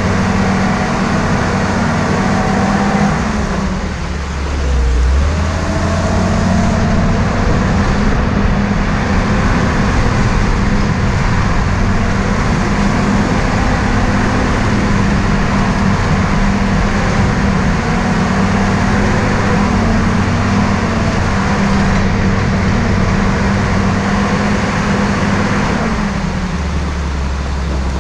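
Jeep CJ5 engine running steadily under way, with a constant rush of tyre and wind noise. The engine note dips briefly about four seconds in, then settles lower near the end.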